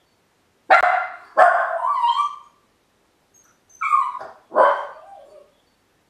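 A Miniature Pinscher barking while left home alone: four barks in two pairs, one pair about a second in and the other a few seconds later, the second bark of each pair drawn out into a longer tail.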